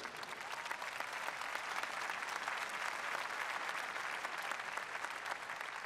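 Large audience applauding, a steady dense clapping of many hands that holds at an even level throughout.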